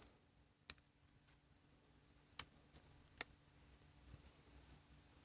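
Near silence with four faint, sharp metal clicks of a screwdriver and small wrench tightening the little screw that holds the lever onto a carburetor float.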